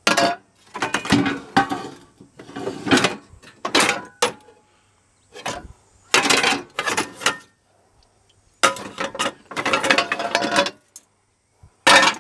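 Metal scrap clattering and scraping as hot-plate griddle plates and a takoyaki plate are shifted around in a pile of appliance scrap: several bursts of rattling knocks with short pauses between them.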